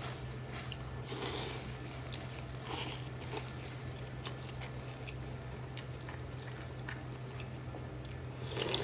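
A person eating a bowl of pho close to the microphone, chewing and slurping noodles, with short louder mouth noises about a second in, near three seconds and near the end. A steady low hum runs underneath.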